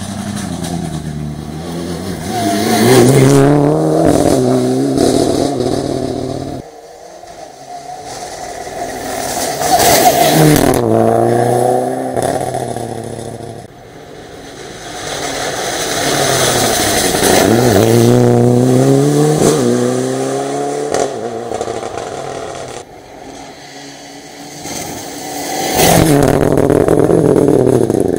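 Rally cars passing one at a time on a special stage, about four passes. Each engine revs hard and its pitch climbs and drops sharply at every gear change. The passes are separated by abrupt cuts.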